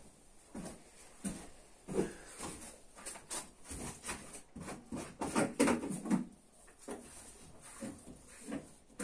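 Irregular knocks, clicks and rustles of hands handling parts and containers while working on a motorcycle, with a louder cluster of clunks about five to six seconds in.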